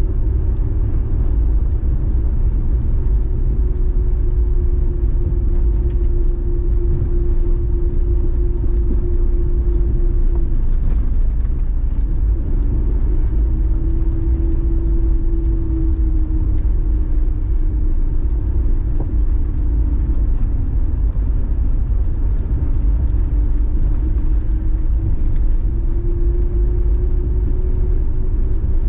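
Mercury Mountaineer SUV driving, heard from inside the cab: a steady low rumble of engine and road noise, with a humming tone that sags and climbs back twice as the speed changes.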